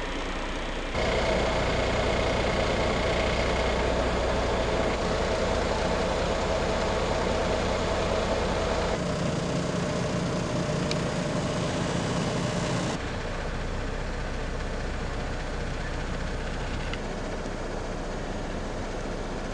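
Steady truck engine and road noise, heard as a run of short clips whose sound changes abruptly at each cut, with a deeper rumble through the middle stretch.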